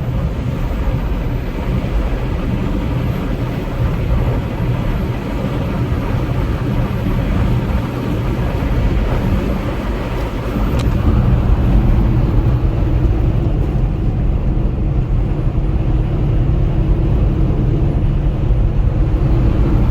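Semi-truck engine and road noise heard from inside the cab while driving at highway speed: a steady low rumble that grows a little louder about eleven seconds in.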